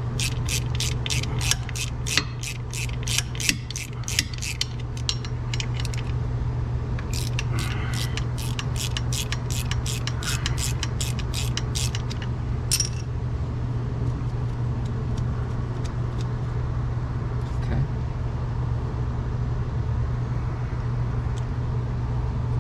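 Hand ratchet with a socket clicking, about three to four clicks a second, in two runs with a short pause about six seconds in, as a bolt is worked to slacken the air-conditioning belt. After about twelve seconds the clicking stops and only a steady low hum is left.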